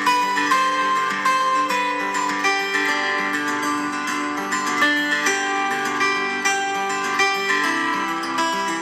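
Background music led by plucked acoustic guitar, notes picked in a steady rhythm.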